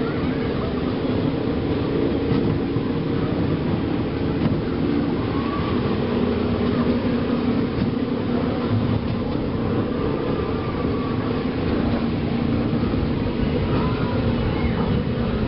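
Steady rumble of a theme-park ride vehicle rolling along its track.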